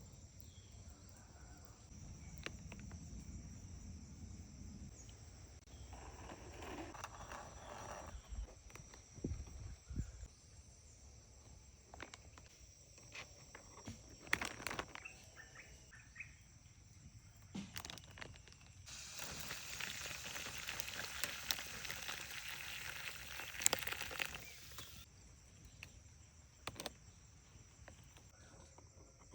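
Insects trilling steadily at a high pitch in the forest, with scattered knocks, clicks and rustling from handwork. For about six seconds past the middle, a louder hissing noise covers them.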